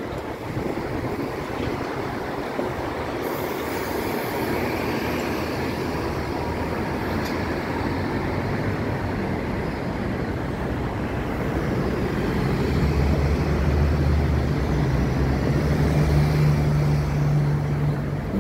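Road traffic on a busy city street: cars and buses passing in a steady wash of noise. About two-thirds of the way in, a heavy vehicle's low engine drone comes up and is loudest near the end.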